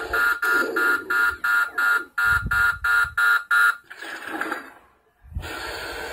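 Upgraded Spirit proton pack's sound kit sounding its overheat warning: rapid electronic beeping, about three beeps a second for some three and a half seconds. A short noisier burst follows, then a steady hum.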